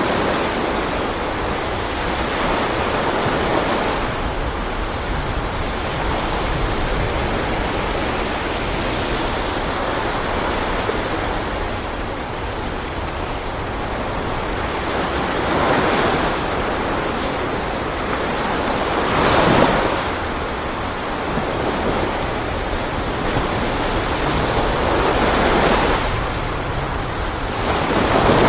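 Sea waves and wind: a steady rush of surf that swells louder now and then.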